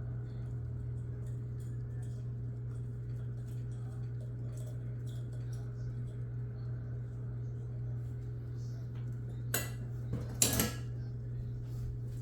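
Steady low hum with faint scattered ticks, then a few light metallic clinks and clatters about nine and ten seconds in, the second the loudest.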